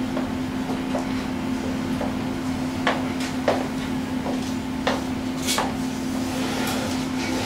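Footsteps on a wooden stage floor, a series of light irregular knocks, over a steady low hum.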